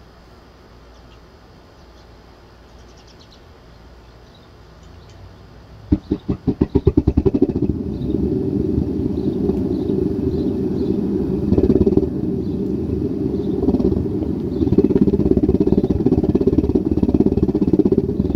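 Homemade metal-melting furnace firing up through the pipe in its side: quiet at first, then about six seconds in a burst of rapid puffs that settles within a couple of seconds into a loud, steady roar.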